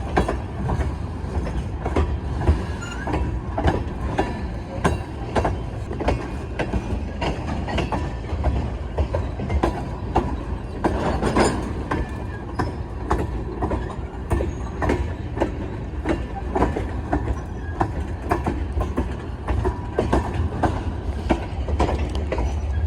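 Freight train of tank cars rolling past, wheels clicking and clacking over the rail joints above a steady low rumble.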